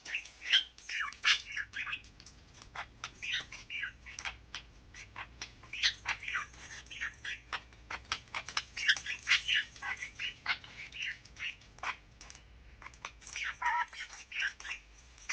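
Pet budgerigars chirping: a busy, continuous run of short high chirps and warbles of changing pitch, with brief pauses.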